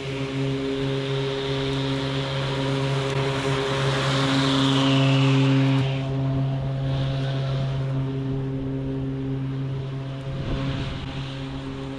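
Toro Revolution Grandstand battery-powered stand-on mower running while cutting grass: a steady electric hum from the blade motors over a hiss of blades and clippings. It grows louder about four seconds in, with a falling whine, then eases back.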